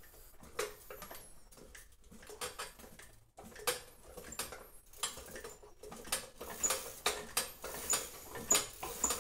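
Hand-cranked bicycle-crank piston air compressor with a PVC cylinder being pumped: clicks and clatters from the crank and piston. About two-thirds of the way in they settle into a steady rhythm of roughly one stroke every 0.6 s, each click carrying a short high chirp.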